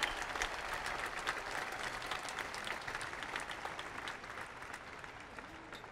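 Large crowd applauding, many hands clapping together, dying away gradually.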